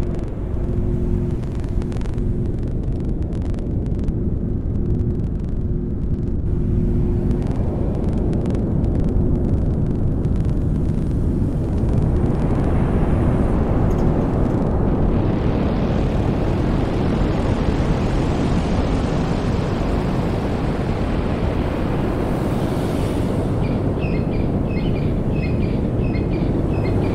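Improvised noise music: a dense low rumble with a few steady low drones at first, swelling into a loud hissing wash from about halfway, with small repeated chirps near the end.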